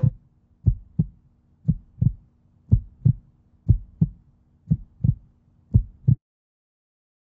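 Heartbeat sound effect: six double thumps, lub-dub, about one a second, over a faint low hum, stopping about six seconds in.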